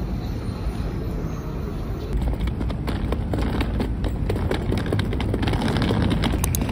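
Street traffic noise, then from about two seconds in a hard-shell suitcase's wheels rolling over paving stones: a rapid, uneven rattle of clicks as they cross the joints between the slabs.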